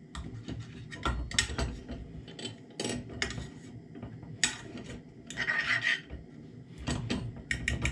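A metal fork scraping and clicking against a small frying pan as melting butter is stirred around it, in short irregular strokes with a longer scrape about five and a half seconds in.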